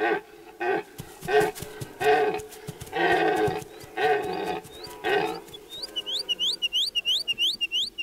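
Red deer calling in the rut: a run of short, pitched calls repeated about twice a second, the longest about three seconds in. Near the end they give way to a fast series of high, rising chirps.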